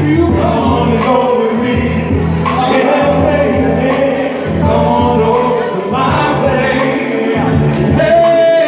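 Male vocal group singing live into microphones over music, amplified through the stage PA, with several voices together.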